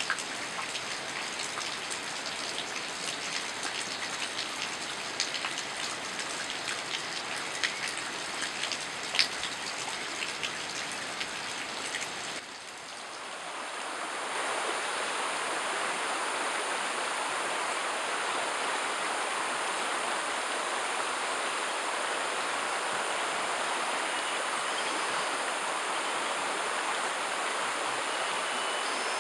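Rain falling, with sharp clicks of single drops striking close by. About twelve seconds in there is a cut to a steady, louder rush of running water.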